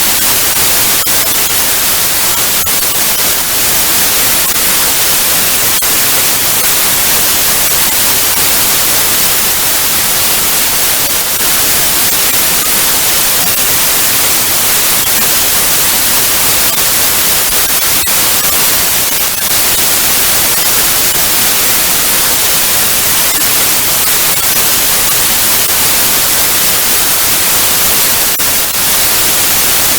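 Television static: a loud, steady hiss, heaviest in the treble, with faint crackles running through it.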